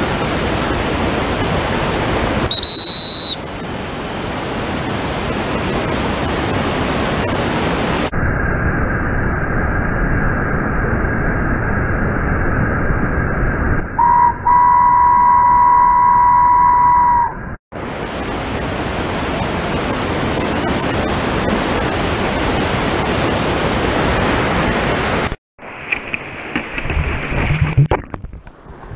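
Rushing whitewater of a river rapid heard close up from a kayak, a steady loud roar. For about ten seconds in the middle the sound turns muffled and thin, with a steady high tone over it, and near the end it drops out and turns to muffled underwater bubbling as the camera goes under.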